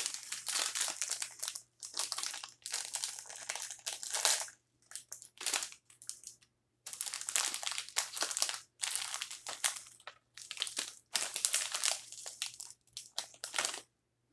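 Plastic Pop-Tarts Crunchy Poppers snack pouch crinkling as it is handled and pulled open by hand. The crinkling comes in repeated bursts with short pauses between them.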